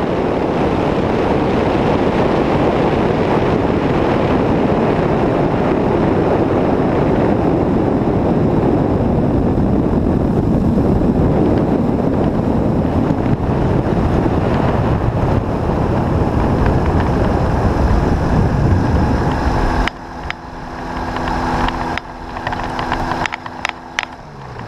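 Powered hang glider trike landing and rolling out on grass: loud steady engine and airflow noise. About 20 seconds in it drops suddenly to a low idling hum with a few clicks, which falls in pitch near the end as the engine winds down and stops.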